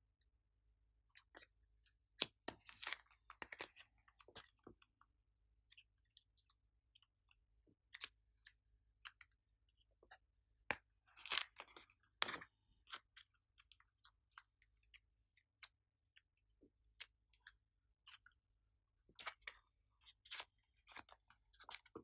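Glossy slime being squished and worked by hand: quiet, irregular sticky clicks and crackles, with a louder cluster of them about halfway through.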